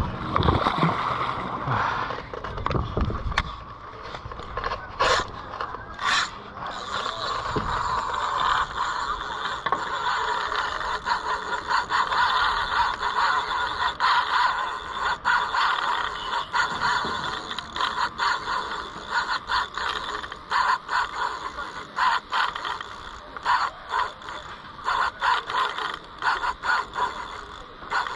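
Heavy fishing reel ratcheting and whirring while a hooked Mekong giant catfish is played. The sound runs steadily for most of the stretch, then turns into short stop-start bursts near the end.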